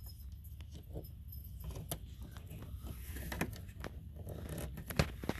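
Hands fitting a replacement 12-volt converter board into a travel trailer's power distribution panel: scattered small clicks and metallic rattles, with a sharper knock about five seconds in, over a low steady hum.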